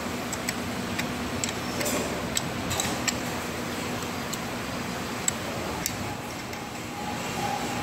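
Light, sharp metallic clicks and ticks from a hand tool on the bolts of a volumetric cup filler's measuring cup, irregular and several a second at first, then sparser. A steady background hum runs under them.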